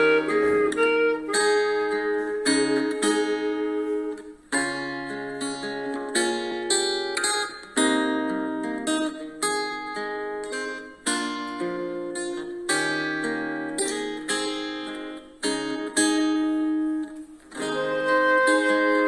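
Instrumental hymn music: a clarinet playing a slow melody over a plucked-string accompaniment whose notes strike and ring out, with short breaks between phrases.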